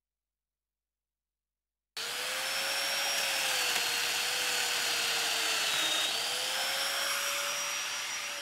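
Festool Domino joiner motor running, cutting in abruptly about two seconds in. Its pitch sags for a couple of seconds as the cutter plunges into the wood to cut a mortise, then recovers.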